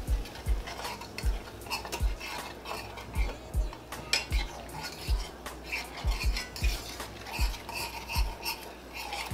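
A utensil scraping and clinking against a stainless-steel skillet as onions and garlic are stirred in vegetable stock, deglazing the pan to lift the browned bits off the bottom. Uneven dull knocks come about every half second.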